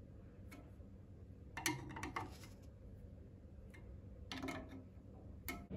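Faint, scattered metallic clicks and taps as a flat-bladed screwdriver turns a chrome radiator isolating valve fully open, the blade knocking in the valve's slot.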